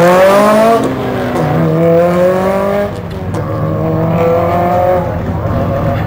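Subaru Impreza rally car's turbocharged flat-four engine accelerating hard through the gears. The pitch climbs and drops back at each upshift, three times.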